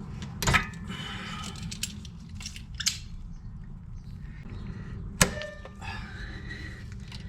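Small metal tools and brake-line fittings clinking and clicking as they are handled, with one sharp click about five seconds in, over a steady low hum.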